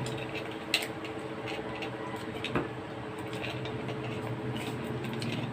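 Eating sounds: faint small mouth and utensil noises, with two sharp clicks about one second and two and a half seconds in, over a steady low hum.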